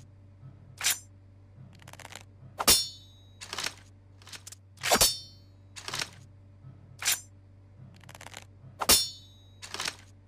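Katana sword sound effects: a string of about a dozen sharp metallic swipes and clangs, roughly one every second, the loudest three or so ringing briefly. A steady low hum runs underneath.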